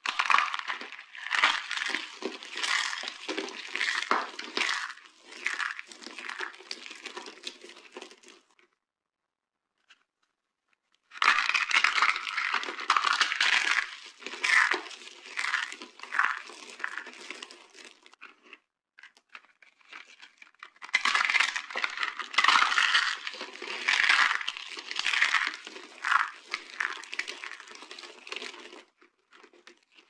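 Dry soap chips and thin soap slivers crushed and crumbled by hand: a dense crunching made of many small crackles. It comes in three long runs, with a silent gap of about two seconds a third of the way in and a softer stretch before the last run.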